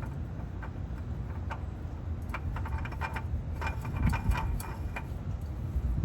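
Mobil 1 Extended Performance oil filter being threaded onto its mount by hand: a run of light clicks and scrapes through the middle few seconds, over a steady low rumble.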